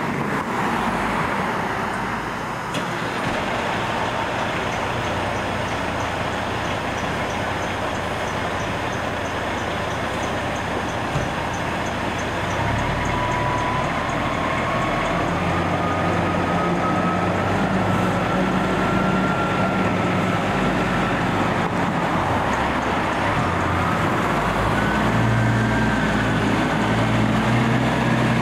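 Fire engine's diesel engine running as the pumper pulls out of the station, coming in about halfway through and growing louder near the end, over a steady hiss of street traffic.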